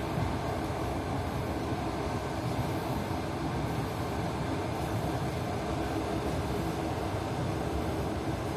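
Moving train's wheels rumbling steadily on the rails.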